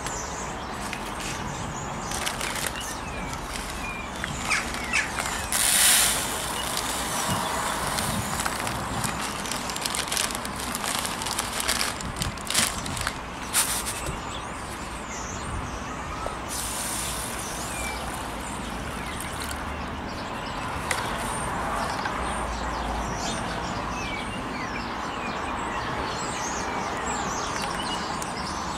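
Plastic bag and bait box of micro pellets being handled: rustling crackles and scrapes, sharpest a few seconds in and again about halfway through, as the fishing pellets are scooped by hand. Birds chirp in the background, and near the end water begins to splash over the pellets into the box.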